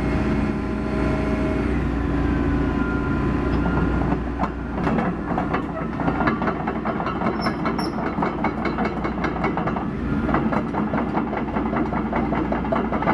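John Deere 225D LC excavator's diesel engine running steadily, with a whine that drops in pitch early on. From about four seconds in, rapid metallic clatter comes in alongside the engine.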